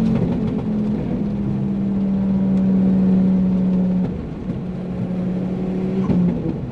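Turbocharged Ford Focus ST engine running hard at a steady, held pitch. It eases off and gets quieter about four seconds in.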